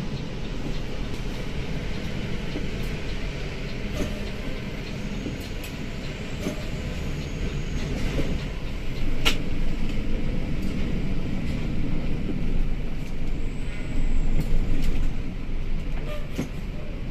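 Heavy vehicle engines running with a steady low rumble as vehicles drive off a ferry's car deck over the steel ramp, with a few sharp clanks, the sharpest about nine seconds in. The rumble grows louder in the second half.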